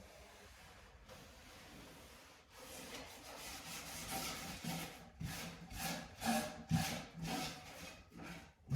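Rubbing strokes across a wooden floor, about two a second, starting about two and a half seconds in.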